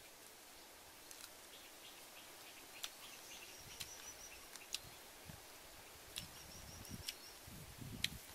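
A bird repeating a quick run of four to six short, high chirps, twice, over a faint outdoor background. Scattered sharp clicks and soft low knocks come from handling and eating the food, the loudest click near the end.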